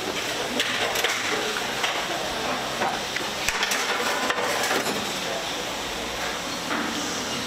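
Scattered clinks and knocks of a glass baking dish and the oven: the oven door is opened and the dish is slid onto the metal oven rack, over a steady background hiss.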